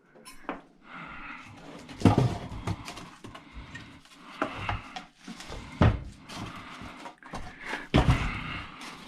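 Knocking and clattering of tools against the metal parts of an old battery charger being taken apart. Louder single knocks come about two, six and eight seconds in, between lighter handling noises.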